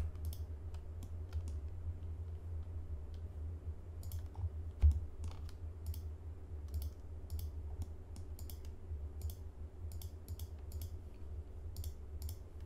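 Irregular clicks of a computer mouse and keyboard, scattered singly and in small clusters, over a steady low hum. One louder thump comes about five seconds in.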